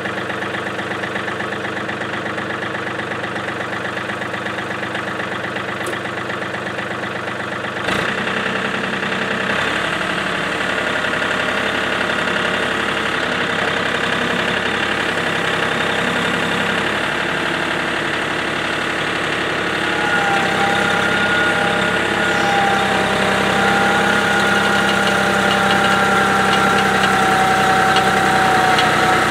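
John Deere compact tractor engine running steadily, growing louder about eight seconds in. A steady whine joins it about two-thirds of the way through.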